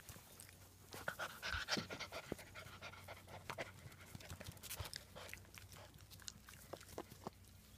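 German Shepherd puppy panting close to the microphone, with scattered small clicks and scuffs, loudest a second or two in.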